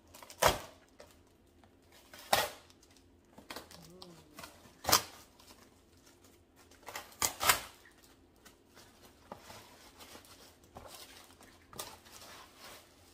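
A parcel's packaging being torn open by hand: several short, sharp rips, two of them close together, with quiet rustling and handling between.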